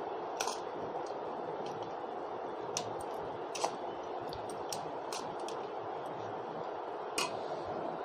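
A ladle mixing and breaking up cooked rice on a plate, with scattered short clicks and scrapes of the ladle against the plate over a steady background hiss.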